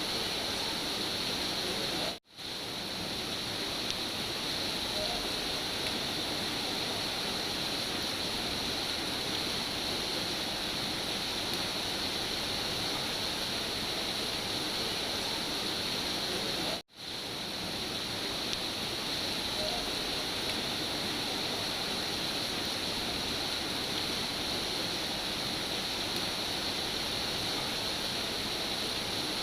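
Steady rain falling, an even hiss. It cuts out abruptly for a split second twice, about 2 seconds in and again around 17 seconds, then swells straight back.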